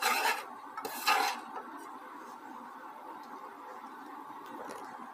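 A white plastic spatula scrapes and stirs sesame seeds as they toast in a dry dark pan: two short scraping strokes in the first second and a half. After that there is only a faint steady hiss with a few small ticks.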